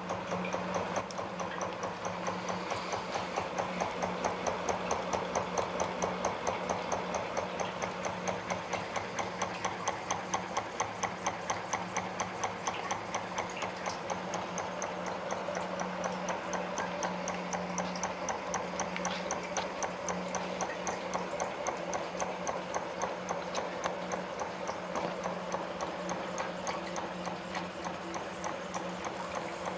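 Home-built yoke-drive gamma Stirling engine running steadily, its piston, yoke linkage and flywheel making an even, rhythmic clatter of a few beats a second over a steady low hum.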